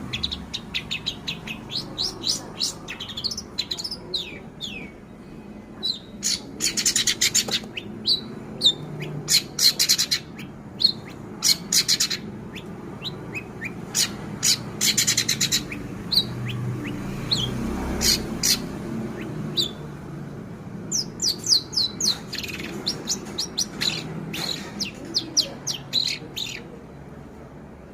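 Young long-tailed shrike (cendet) singing a rapid, varied string of chirps and sweeps, mimicking kapas tembak and canary song, with several fast trills mixed in.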